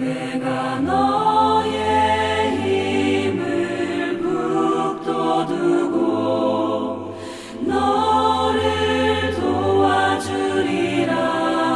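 Background music of a choir singing over a steady low bass line, starting suddenly out of silence; the phrase begins again about eight seconds in.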